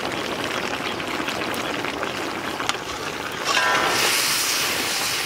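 Quail pieces frying in a large iron kadai, a steady sizzle that grows louder and hissier about three and a half seconds in as the chilli-coated meat is stirred with a long metal ladle.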